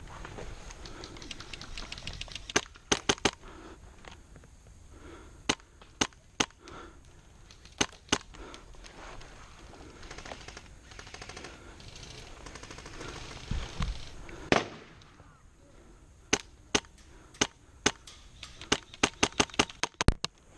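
Airsoft guns firing: sharp pops, some single and some in short quick strings, about two seconds in, again around six to eight seconds in, and in a fast run from about sixteen seconds in to near the end.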